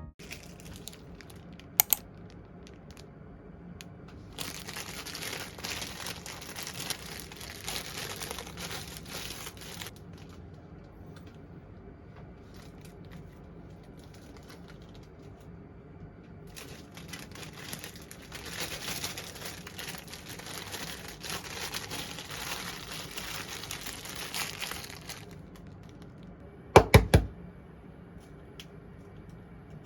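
Crinkling and rustling, such as plastic or paper being handled, in two long stretches, with a sharp click early on and a brief loud double knock near the end.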